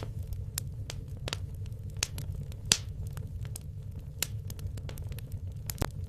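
Wood logs burning in a fireplace, crackling with sharp pops at irregular intervals, the loudest about halfway through and another strong one near the end, over a steady low rumble.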